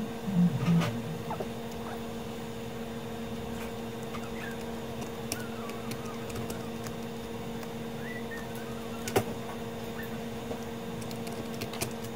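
Small clicks and taps of hands working on the opened mixing console's parts and connectors, with a few low knocks in the first second and one sharper click about nine seconds in, over a steady low electrical hum.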